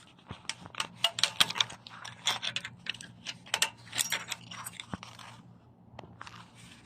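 A retaining clip at a car's rear brake caliper being worked loose by hand: a quick run of small clicks, scrapes and metallic rattles for about five seconds, then only a couple of isolated clicks.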